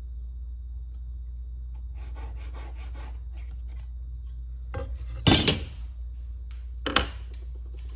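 Hand work on a cabinet door: a run of short scratchy rubbing strokes, then two sharp rasps about five and seven seconds in, over a steady low hum.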